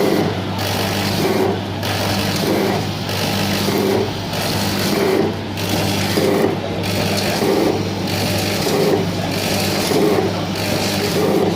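Automatic granule filling and packing machine running: a steady motor hum under a mechanical cycle that repeats about every 1.3 seconds, one sachet formed, filled and sealed per cycle.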